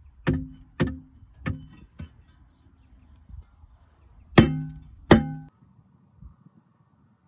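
A steel digging bar striking a buried, rusted steel object, giving sharp metallic clangs that ring briefly. There are four strikes in the first two seconds, then the two loudest, about 0.7 s apart, a little past halfway.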